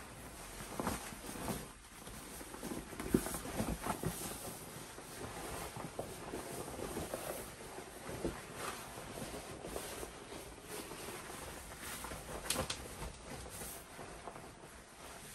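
Stiff PVC rainwear rustling and crinkling as a heavy green rain slicker is pulled on over a shiny PVC hooded raincoat, with irregular swishes and a few short, sharper crackles.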